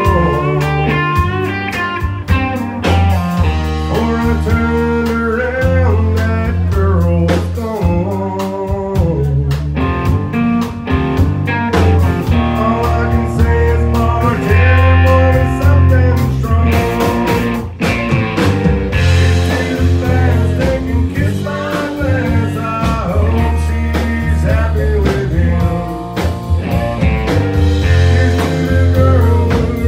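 Live country band playing: a man singing over strummed acoustic guitar, fiddle, electric guitar and drums.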